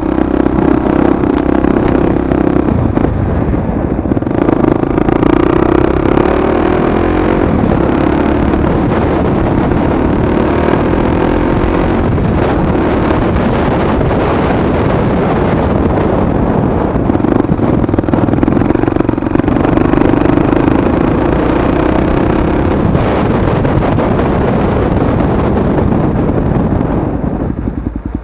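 Honda Tornado 250 single-cylinder motorcycle engine running under way through an aftermarket exhaust, with wind buffeting the microphone. The engine note rises and falls with the throttle and eases off near the end.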